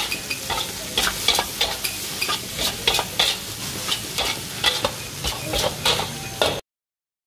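Metal spatula scraping and clanking against a stainless steel wok, stir-frying fried rice with a steady sizzle, about three strokes a second. The sound stops abruptly near the end.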